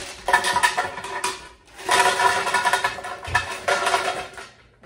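Ice cubes clattering into an empty blender jar as they are poured from a cup, in two pours: a short one near the start and a longer rattling run from about two seconds in until shortly before the end.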